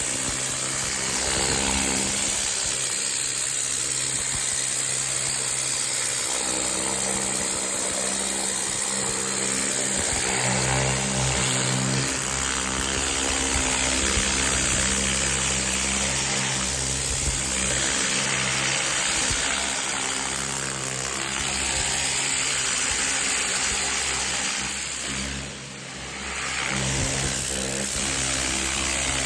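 Pressure washer running steadily with a turbo nozzle: a constant engine-like hum under the loud hiss of the high-pressure spray. The spray sound drops away briefly about 26 seconds in, then comes back.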